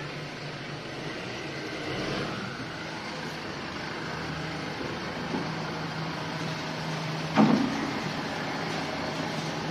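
Diesel engine of a Tata Hitachi Shinrai backhoe loader running steadily as the machine drives in. About seven and a half seconds in there is a single sharp, loud knock.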